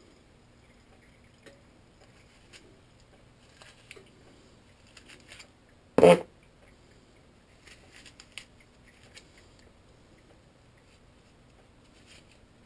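Small knife cutting and scraping into an apple as it is cored by hand: faint scattered clicks and scrapes, with one loud knock about six seconds in.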